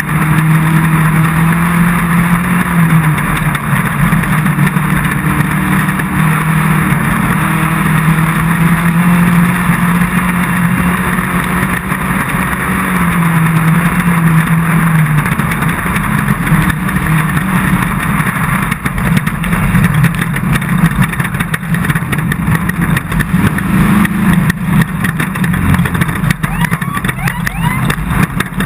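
Off-road race car's engine running hard, its pitch rising and falling with the throttle, under a steady rush of wind and road noise. Knocks and rattles come more often in the second half.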